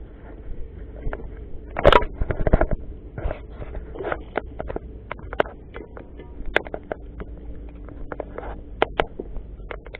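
Close crunching, scraping and clicking of footsteps on a dry dirt bank, mixed with knocks of handling noise against a body-worn camera, loudest in a burst of crunching about two seconds in.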